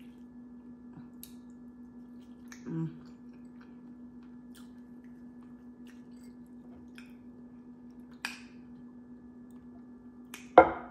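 Close-up chewing of crispy fried chicken wings: faint wet mouth clicks with a few sharp crunches, the loudest crunch just before the end. A steady low hum runs underneath.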